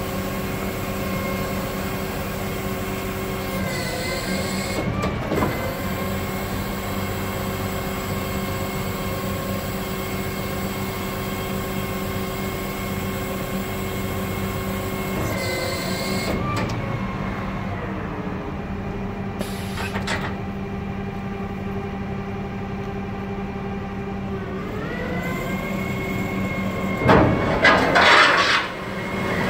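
Dennis Elite 2 refuse truck with an Olympus body running its rear bin-lift hydraulics: a steady hum of several tones from the engine and hydraulic pump, dipping and gliding in pitch a few times as the lifts are worked. Near the end come two loud bursts of harsh metallic scraping from the lift mechanism.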